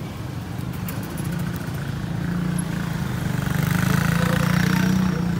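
A motor scooter's small engine running close by. It grows louder as the scooter comes alongside and eases off near the end.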